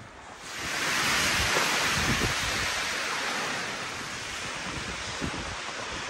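Blizzard wind rushing through snow-laden spruce forest. It swells in a gust about half a second in and then eases slowly.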